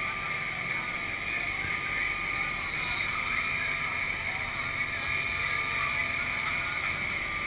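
Amphibious truck running on water: its engine drones steadily under way, with water rushing along the hull and a thin steady whine over it.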